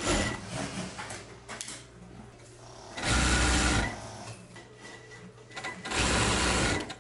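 Industrial single-needle sewing machine stitching cotton fabric in two short runs, one about three seconds in and one near the end, each lasting under a second. A steady low hum and small handling clicks fill the gaps between them.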